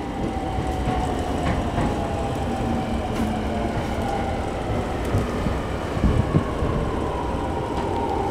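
Mitsubishi IGBT-VVVF inverter and traction motors of a Sotetsu 10000 series electric train whining with a slowly falling pitch as the train slows, over the steady rumble of wheels on the rails, heard from inside the car.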